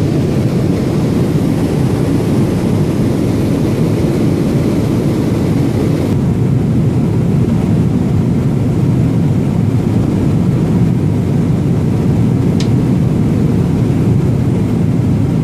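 Steady jet airliner cabin noise inside a Boeing 777-300 in cruise: an even, low rush of engines and airflow. A brief faint chirp sounds about twelve and a half seconds in.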